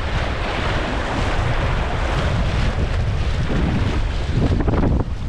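Wind buffeting the microphone over the steady rush of river water.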